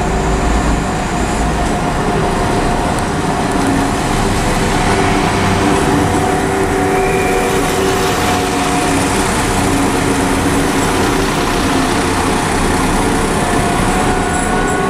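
Class 172 Turbostar diesel multiple unit running at the platform: a steady engine drone with a few held tones, and extra low rumble in the first second or so.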